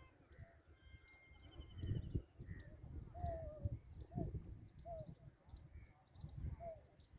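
Birds calling: a quick high trill, then four short downward-sliding chirps spaced about a second apart, over irregular low rumbling.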